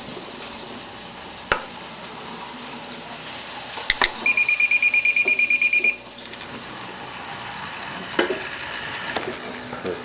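DCC model-railway layout's short-circuit alarm beeping rapidly, about a dozen high beeps a second for just under two seconds, after a couple of sharp clicks: the track has been shorted. A faint steady hiss runs under it.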